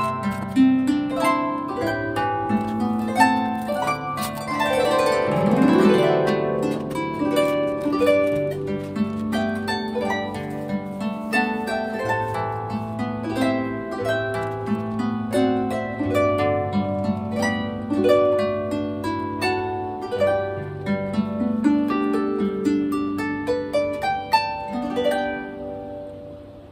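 Solo harp music, plucked notes in a slow melody with chords, including a sweeping run of notes about five seconds in; it fades out at the very end.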